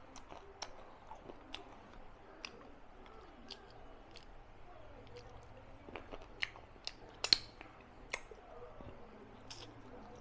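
A person chewing food close to the microphone, with scattered wet clicks and smacks of the mouth; the loudest clicks come about six to eight seconds in.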